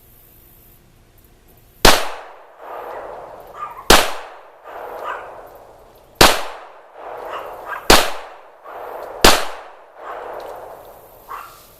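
Five gunshots from a firearm of a larger calibre than a .22 LR, fired at a target about 1.5 to 2.5 seconds apart, each followed by a decaying echo.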